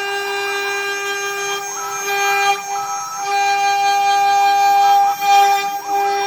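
Stepper motors of a CNC machine running under Mach3 control: a steady whine, with a higher tone that switches on and off several times as another axis moves.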